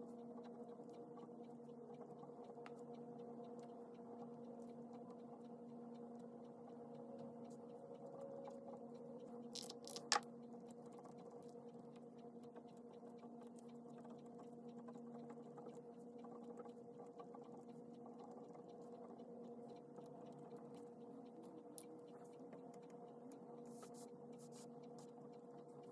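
Pen writing on paper by hand, a faint irregular scratching, over a steady low hum, with one sharp click about ten seconds in.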